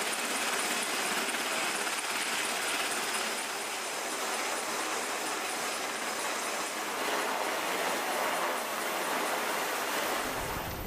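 A steady rushing noise, even in level, with little low rumble.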